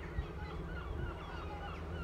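A flock of birds calling over one another in many short, rising and falling calls, with the low steady drone of a distant helicopter underneath.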